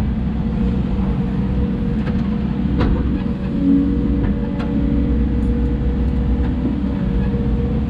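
Hidromek 140 excavator's diesel engine running steadily at working speed, with a few sharp knocks and a short whine near the middle.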